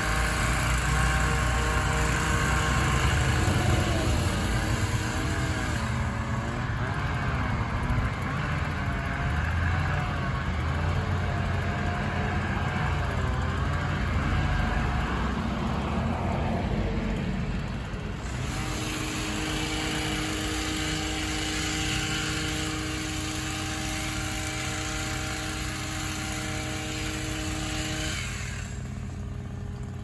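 Bucket truck engines running steadily under a low rumble, with a mechanical whine that wavers up and down in pitch for the first half. From about 18 s to 28 s the whine settles into a steady tone.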